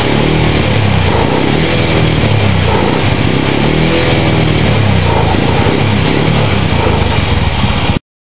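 Engine running steadily, loud and close, until the sound cuts off abruptly near the end.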